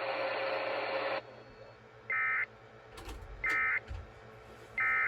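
Emergency Alert System end-of-message signal: three short, identical buzzy digital data bursts about 1.3 seconds apart, the SAME code that closes the broadcast warning. They follow a second of radio hiss that cuts off abruptly.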